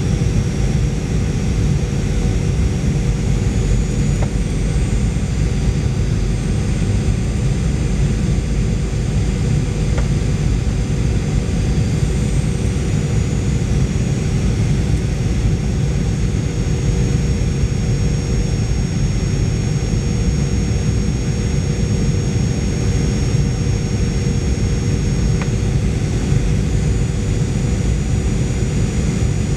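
Steady cabin noise inside a Boeing 737-800 on approach: a loud low rumble of airflow and its CFM56-7B turbofan engines, with a constant mid hum and thin high whines from the engines.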